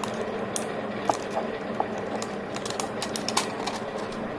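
Light, irregular clicks and taps of a G-Shock wristwatch being handled, with a quick cluster about three seconds in, over a steady low hum.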